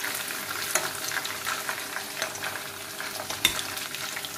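Fish steaks sizzling and crackling in hot mustard oil in a steel wok while a metal spatula scrapes under them to lift them out. There is a sharp clink of the spatula against the pan about three and a half seconds in.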